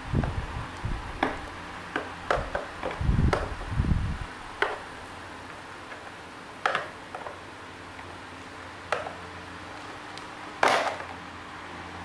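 Irregular knocks, taps and clatter of hand tools and parts being handled during repair work. There are dull thumps about three to four seconds in and a longer, louder clatter near the end.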